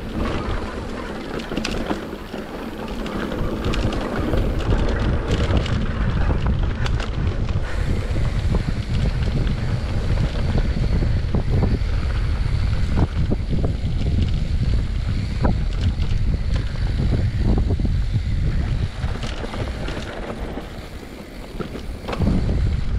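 Wind buffeting the GoPro microphone on a mountain bike descending a dry dirt trail, with the tyres rolling over the ground and frequent sharp clicks and knocks as the bike hits bumps. It eases off briefly about two seconds in and again shortly before the end.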